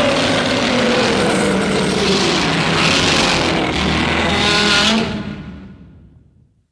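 Godzilla's Heisei-era roar sound effect: a long, harsh, screeching roar whose pitch slides downward, then fades away over the last second and a half.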